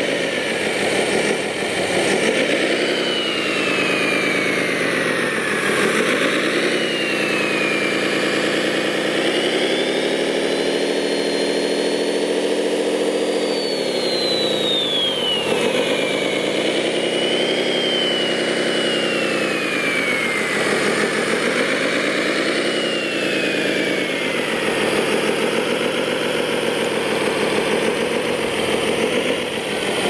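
Scale RC Komatsu WA600 wheel loader model working, its engine note rising and falling again and again. Over it runs a high whine that climbs and then slides downward several times.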